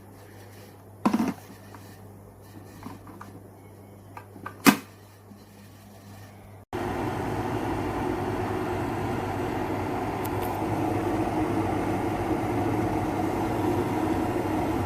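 Two sharp clicks. Then, after an abrupt cut, a steady rumbling hiss from a 1.8 L stainless steel electric kettle heating water toward the boil.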